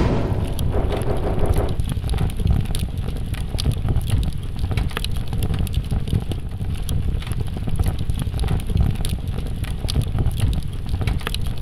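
End-screen sound effect: a steady low rumble with scattered crackling throughout, and a brief tone about a second in.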